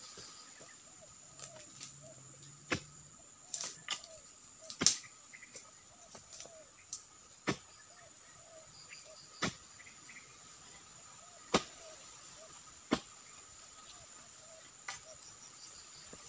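About ten sharp chopping strikes, spaced irregularly one to two seconds apart, as a long-handled pole chisel (dodos) cuts into the fibrous trunk and frond bases of an oil palm. A steady high insect drone runs underneath.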